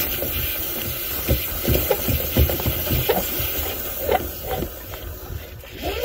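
Steady rushing hiss of air and lint blowing out of an exterior dryer vent hood while the duct is cleaned, over a low rumble. Irregular light knocks come about once or twice a second as the cleaning rod or hose works in the metal vent.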